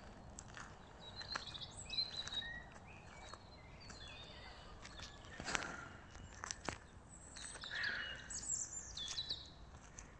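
Woodland songbirds singing in short chirps and gliding phrases, with scattered footsteps on a gravel forest track; the sharpest step comes about five and a half seconds in.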